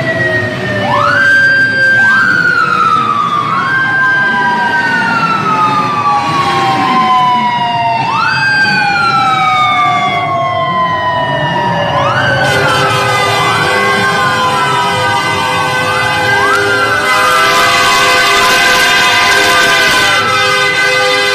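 Police escort sirens from several vehicles wailing together, each rising quickly and then falling slowly, over and over. About twelve seconds in, a long steady horn joins them and holds.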